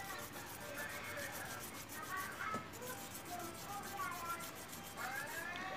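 An agate gemstone rubbed by hand back and forth on very fine 5000-grit sandpaper laid over cloth: a soft, rhythmic scratchy rubbing of the fine polishing stage.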